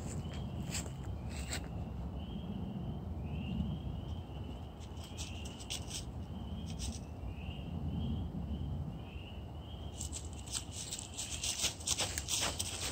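A small animal calling at night with short, rising high peeps, about two a second, which stop about ten seconds in. Sharp clicks and rustling crackles take over near the end, over a steady low rumble.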